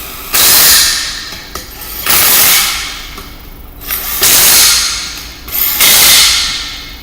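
Impact wrench (impact gun) run in four short bursts of about a second each, tightening down the bracket bolts on a differential housing.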